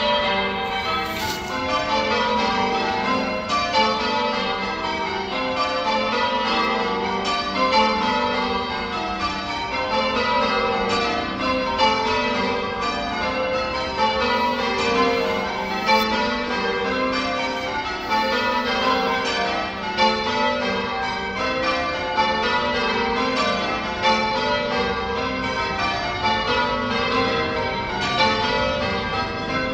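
Church tower bells ringing in changes, struck one after another in an even, unbroken sequence with their tones overlapping.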